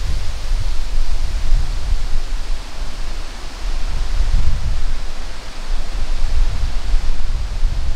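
Wind buffeting the microphone in a gusty low rumble, over a steady rustle of wind through leaves.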